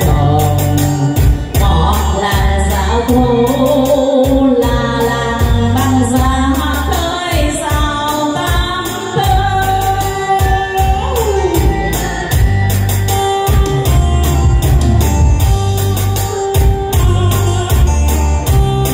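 A woman singing a Vietnamese song into a microphone over a backing track with a steady bass beat. Near the end her voice stops and the instrumental accompaniment plays on.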